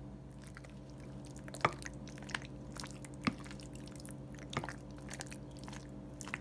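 Penne being stirred into thick cheese sauce in a glass dish with a spoon: wet squelching and scattered sharp clicks of the spoon against the dish, over a steady low hum.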